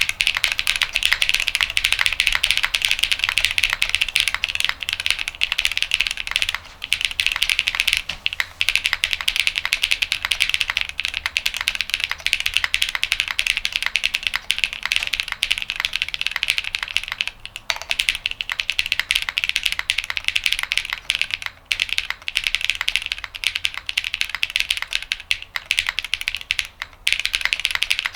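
Fast, continuous typing on a custom 60% mechanical keyboard with lubed Techno Violet linear switches (full nylon housing, long-pole stem, 58 g double spring) on a polycarbonate half plate, a dense stream of key presses and keycap clacks with a few brief pauses.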